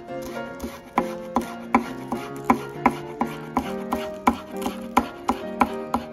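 A chef's knife chopping green onion on a cutting board: quick, even taps, about three a second. Background guitar music plays underneath.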